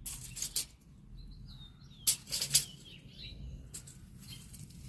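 Tape measure rattling and clicking as its blade is handled and pushed out, in two short clusters of sharp clicks, one at the start and one about two seconds in. Faint bird chirps in between.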